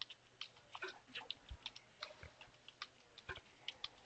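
Computer keyboard being typed on: faint, irregular key clicks, several a second.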